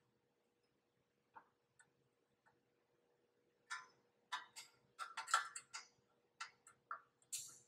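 Irregular sharp metal clicks and clinks of hand wrenches on bolts as the bolts in the rack's posts are tightened. One click comes early, then a quick cluster of clicks in the second half.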